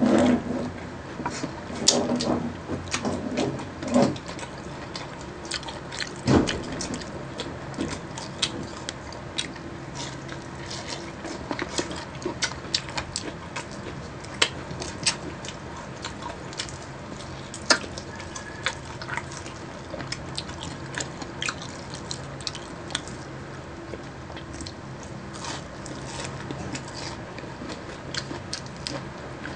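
Close-up eating sounds of crispy fried chicken wings and onion rings: sharp crunching bites and chewing with wet, smacking mouth sounds. The louder crunches come in the first few seconds and once more around six seconds in.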